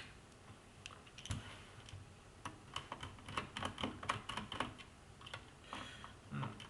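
Screwdriver turning out screws from a plastic computer case: a run of light, irregular clicks and taps.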